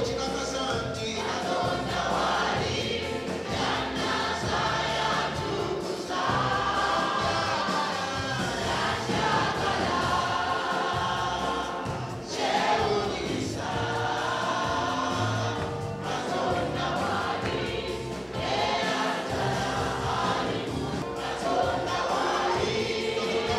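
Church worship team singing a gospel praise song in chorus, a man leading on a microphone.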